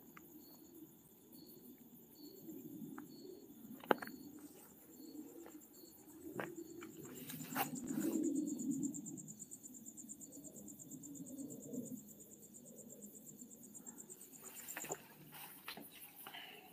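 Night insects chirping steadily: a continuous high trill with a lower chirp repeating about twice a second. Under it, footsteps and rustling, loudest about halfway, with a few sharp clicks.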